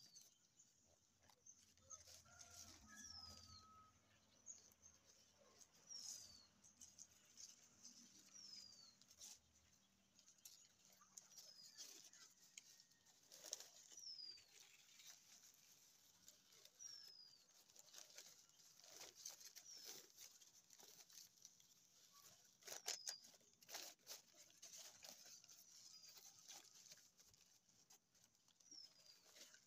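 Faint crinkling and rustling of newspaper as it is folded and handled, with a bird giving a short, high, falling call every couple of seconds in the background.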